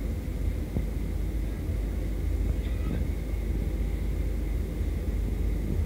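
Steady low rumble of a jet airliner's engines and airflow, heard from inside the passenger cabin during the descent to land.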